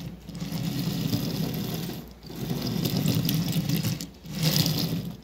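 Bandai TECS Edward toy engine rolled by hand along a wooden tabletop, its wheels and side rods giving a steady rumbling rattle. It goes in three pushes, with short breaks about two seconds in and about four seconds in.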